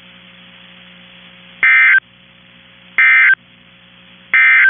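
Emergency Alert System end-of-message data code: three short identical bursts of a rapid two-tone data warble, about a second and a half apart, over a steady low hum.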